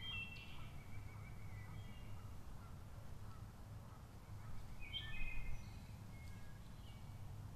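Wood thrush singing two short phrases of clear, flute-like notes: one at the start and one about five seconds later, the second the louder. A low steady hum runs underneath.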